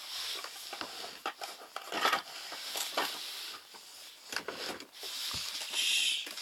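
Rustling and scattered light taps and knocks of hands handling a plastic toy pig on a wooden floor.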